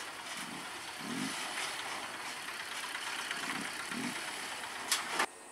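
A heavy truck crossing a railway level crossing at low speed, its engine running, with two pairs of low thumps from the truck. Near the end come two sharp clicks, then the sound cuts off.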